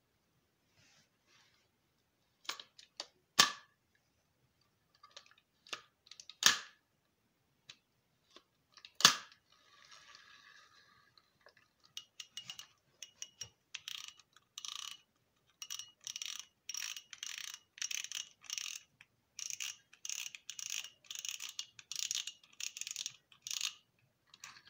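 Lineaeffe Vigor Power 6000 spinning reel being handled. A few sharp metallic clicks come first, then long runs of quick, faintly ringing clicks as the front drag knob is turned and unscrewed to take off the graphite spool.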